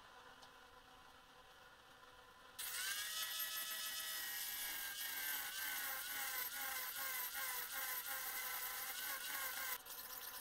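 Angle grinder grinding a steel hatchet head, taking down high spots on its pitted face. It starts about two and a half seconds in. The motor's whine wavers again and again as the disc bites and eases, and it stops shortly before the end.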